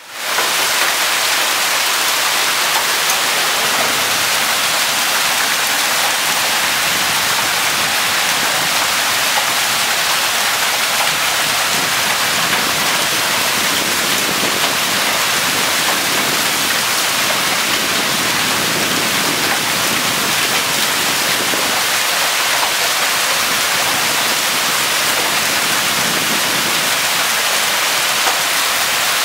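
Heavy hail and rain pelting down steadily on the ground, plants and roof, a dense unbroken hiss.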